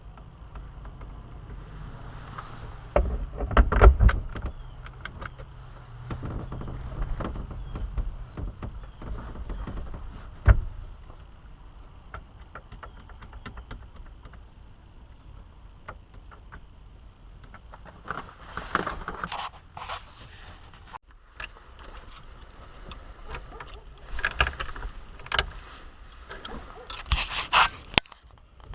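Hand tools working on a van's steering column: scattered metallic clicks, knocks and scraping, with a louder knock a few seconds in and another about ten seconds in, and bursts of rapid clicking near the end.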